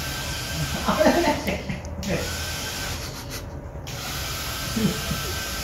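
Battery-operated bubble gun's small motor and fan whirring with a faint whine. It cuts out briefly twice, about one and a half and three seconds in. A short burst of voice about a second in is the loudest moment.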